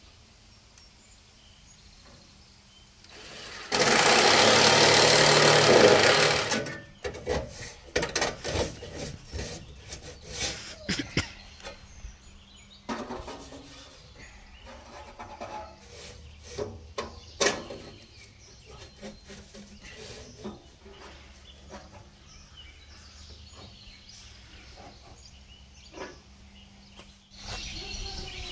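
A cordless drill runs for about three seconds at the sheet-metal stovepipe, followed by a string of sharp metallic knocks and clanks as stovepipe sections and a tee are handled and fitted together.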